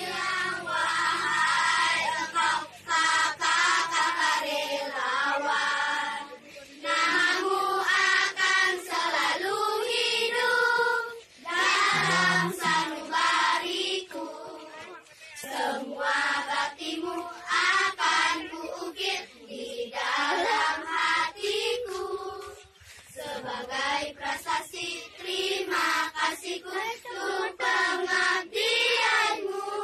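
A group of schoolgirls singing a song together, with brief pauses between phrases.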